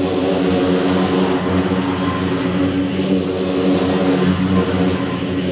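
Scag Cheetah zero-turn riding mower's engine running steadily under mowing load, sped up as a timelapse with its pitch kept true.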